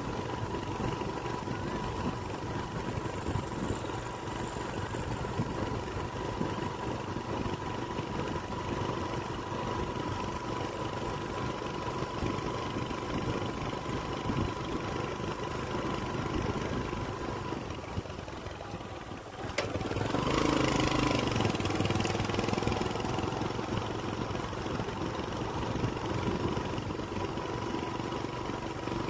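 Steady engine and road noise of a moving vehicle, with a thin steady whine, dipping briefly and then swelling into a louder rush for about two seconds around two-thirds of the way through.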